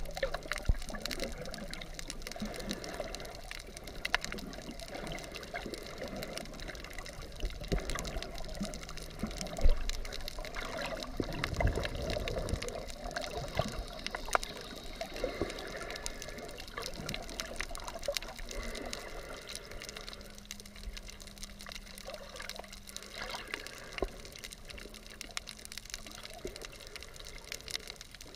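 Underwater sound heard through a GoPro's waterproof housing: muffled water movement against the case, with a steady scatter of sharp clicks and crackles.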